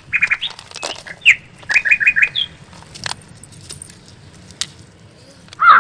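Small birds chirping in short high notes, including a quick run of four chirps about two seconds in, with a few sharp clicks between. A crow starts cawing near the end.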